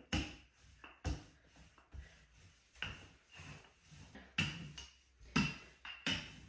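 Wooden rolling pin rolling out bread dough on a countertop, with a knock at each back-and-forth stroke, about one a second, each fading in a short rumble.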